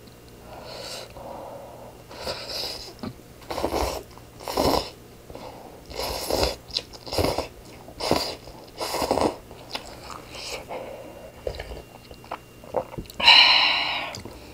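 Cup rice noodles in spicy kimchi broth being slurped and chewed close to the microphone, in a run of short slurps about once a second. Near the end comes a longer, louder slurp.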